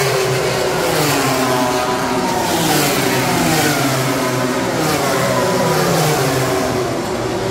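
MotoGP race bikes passing at speed, several engine notes overlapping and gliding up and down in pitch as they accelerate, shift and go by.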